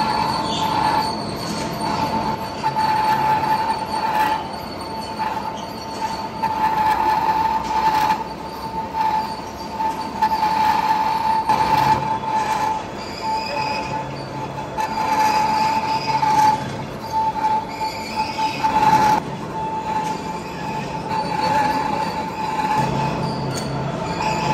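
Cutting tool on a vertical turret lathe squealing against the turning metal workpiece: a steady high-pitched squeal that wavers in loudness and breaks off briefly now and then, over the grinding noise of the machine.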